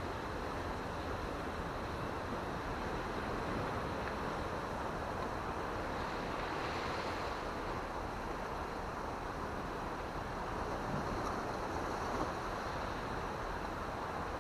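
Steady wash of sea surf breaking over a rocky shore, with wind noise on the microphone.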